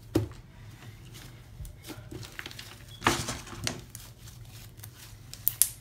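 Hands working toilet paper into butter slime on a plastic sheet: a soft knock just after the start, a short rustle about three seconds in, and a sharp click near the end.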